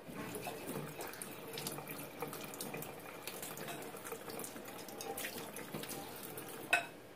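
Kitchen tap running steadily into a stainless steel sink while a peeled onion is rinsed and rubbed by hand under the stream, with a sharp knock near the end.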